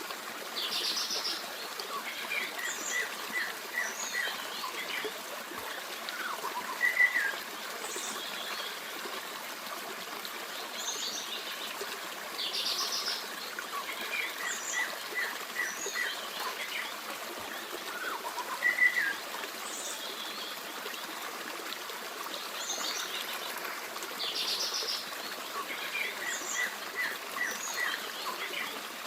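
A forest stream babbling steadily while several birds chirp and sing over it, including a quick run of four or five short notes. The same bird phrases come back about every twelve seconds.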